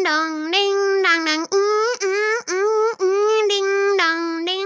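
A child singing a tune: a string of short held notes about half a second each, stepping up and down in pitch, with brief breaks between them.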